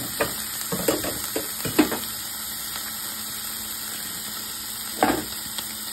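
Breakfast sausage patty sizzling steadily as it fries in a nonstick skillet, with a few short knocks in the first two seconds and one more about five seconds in.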